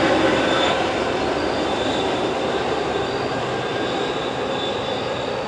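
Passenger train rolling away down the track, the steady rumble of its cars and wheels slowly fading.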